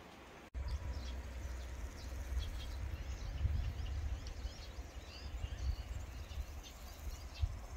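Wind buffeting the microphone as a low, uneven rumble, with scattered bird chirps over it. Both start suddenly about half a second in.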